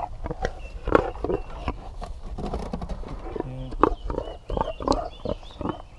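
A pig grunting and snuffling right up against the fence, in short, irregular grunts.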